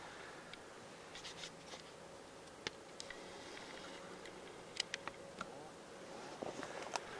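Quiet ambience: a faint steady hiss with a handful of small sharp clicks, one a little under three seconds in, a quick cluster of three near the middle and one near the end.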